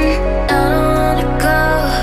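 Background music with sustained bass notes under a bending melody line; the chord changes about half a second in.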